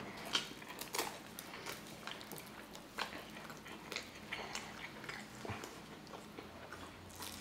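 A person biting and chewing a slice of Detroit-style pizza close to the microphone, with scattered soft crunches and wet mouth clicks about once a second.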